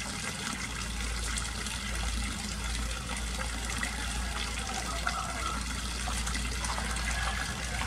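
Water running steadily.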